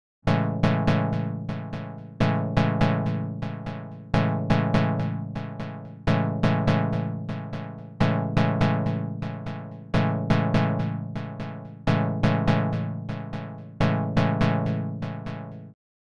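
Dave Smith Evolver synthesizer playing a sequenced chord pattern: short plucked chord stabs, about four a second, each dying away quickly, with the chord changing every two seconds. The sequence stops just before the end.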